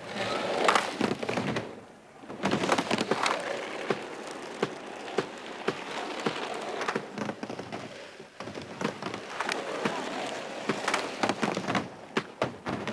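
A rapid, irregular run of sharp knocks and clatters over a steady noisy hiss, briefly dropping off about two seconds in.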